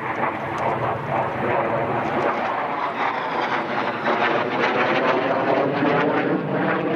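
Embraer KC-390 Millennium's two IAE V2500 turbofan engines running as the transport jet taxis along the runway. It is a steady jet rumble with a high turbine whine over it.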